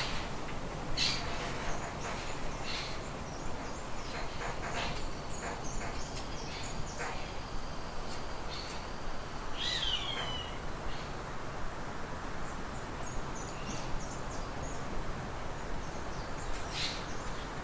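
Wild birds calling: scattered short chirps and calls, with a louder curving call about halfway through, over a steady background hiss.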